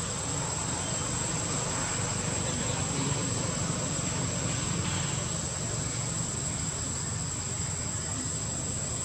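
Insects droning: a steady high whine that never breaks, over a low, even background rumble.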